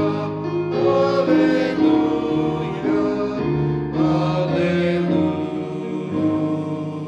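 Sacred music: singing with instrumental accompaniment, in long held notes that change every second or so.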